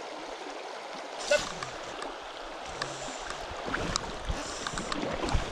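Shallow, stony stream running and rippling close by. There is a sharp splash or knock about a second in, and scattered light ticks and low thumps in the second half.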